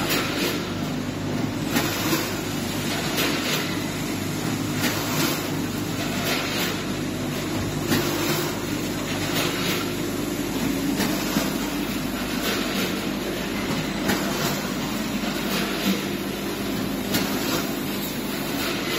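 Automatic pouch-packaging line running, with weigher hoppers and a bucket conveyor: a steady machine hum with a sharp clack roughly once a second as the mechanism cycles.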